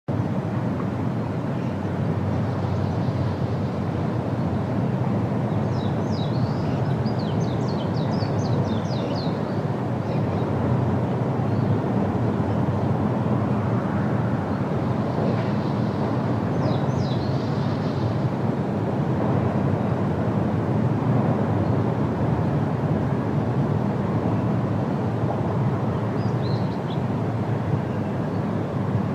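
The Rhine Falls' steady roar of falling and churning water. A few short high chirps come through over it, in clusters a few seconds in, past the middle and near the end.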